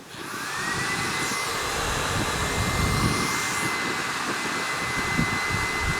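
Andis hair dryer switched on and running: its motor whine rises in pitch over the first second, then holds steady over the rush of blown air.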